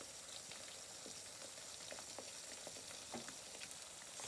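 Three eggs frying sunny-side up in butter in a nonstick pan: a soft, steady sizzle with scattered small pops and crackles.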